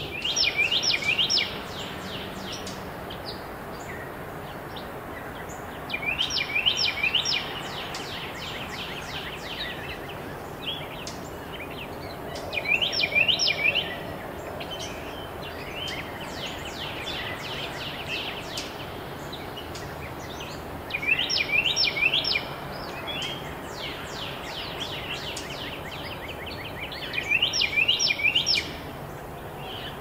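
A bird singing a short, fast phrase of high notes that fall in pitch, repeated about every six seconds, over a steady outdoor background noise.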